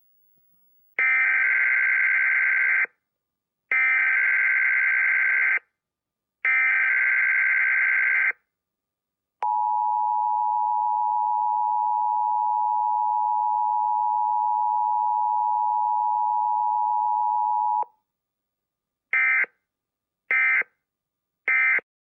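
Emergency Alert System tones: three data bursts of the digital SAME header, each about two seconds long, then the steady two-tone attention signal for about eight seconds, then three short data bursts near the end.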